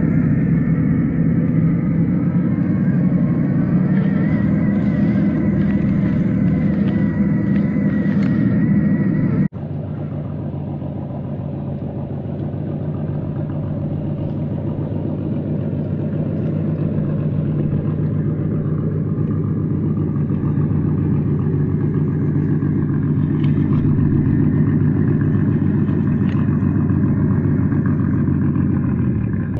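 Steady truck engine sound running for the scale RC tow truck, low and even. It breaks off abruptly about nine and a half seconds in and carries straight on, a little quieter.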